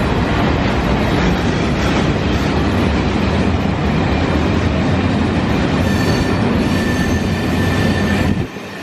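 A long train rolling past close by: a steady, loud rumble of wheels on rail, with thin wheel squeals joining in about six seconds in. The sound drops away suddenly near the end.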